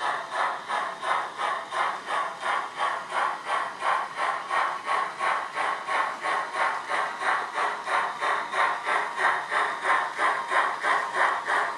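Digital steam-locomotive sound from a Loksound V4 decoder in a Heljan OO-gauge Beyer-Garratt model, played through a small sugar-cube speaker: a steady rhythm of exhaust chuffs, about three a second, as the locomotive hauls its train.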